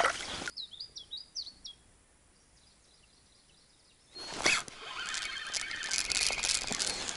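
A small bird chirping: a quick run of short, high, pitch-bending notes, then faint chirps in a near-quiet pause. About four seconds in, rustling and knocking handling noise starts as the feeder rod is picked up from its rest.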